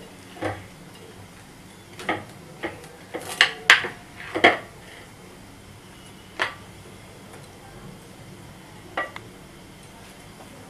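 Metal kitchen utensils clinking and knocking against a plate or pan in scattered sharp strikes, with a quick cluster of louder ones a little past the middle, as a baked pizza is cut and served.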